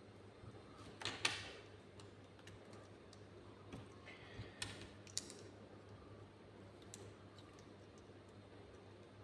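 Small plastic clicks and taps of Lego minifigure pieces being handled and fitted, a few scattered clicks with the sharpest about a second in.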